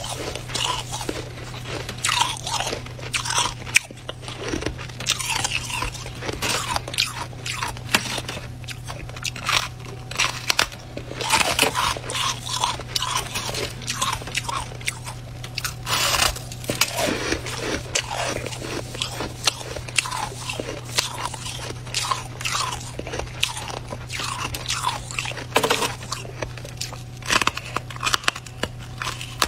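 Freezer frost being bitten and chewed close to the microphone: many irregular crisp crunches, over a steady low hum.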